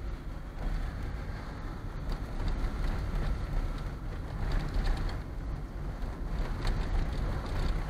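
Car driving along a rough village road, heard from inside the cabin: a steady low rumble of engine and tyres with scattered small clicks and rattles.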